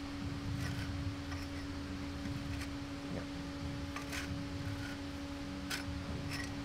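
Faint, scattered metal clicks and taps as gear and bearing parts are shifted by hand inside a StuG III differential housing, over a steady low hum.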